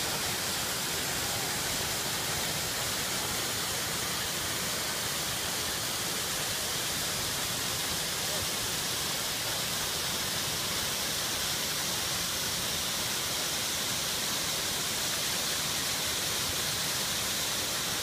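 A waterfall's steady rush of falling water, even and unbroken.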